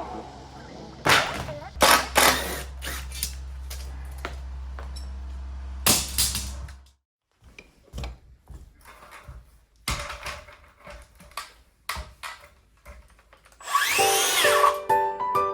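Renovation work noises: sharp knocks and clatter over a steady low hum that stops about seven seconds in, then scattered clicks and taps. Music starts near the end.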